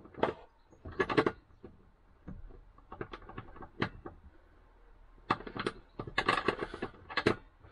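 A box spanner turning the kitchen tap's retaining nut under a caravan sink: scattered metal clicks and clinks, with a denser run of them about five seconds in, as the nut is tightened.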